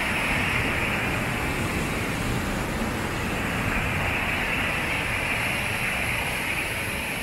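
Waterfall: a steady, loud rush of falling water heard close up.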